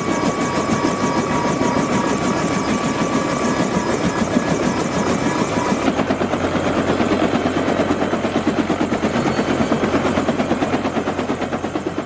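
Helicopter sound dubbed over a paper model helicopter: a fast, even beat of rotor blades with engine noise. A high whine drops out about halfway through and a deeper steady hum takes over.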